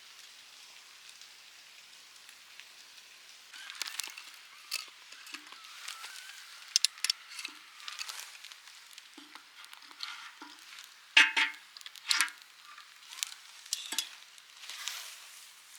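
Wood campfire crackling over a soft steady hiss, with scattered sharp pops starting a few seconds in; the loudest two pops come close together about two-thirds of the way through.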